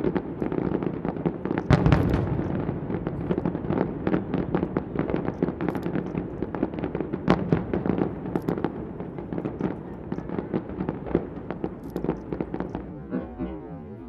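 Fireworks display: a dense run of bangs and crackles over a low rumble, with one heavy bang about two seconds in, thinning out near the end.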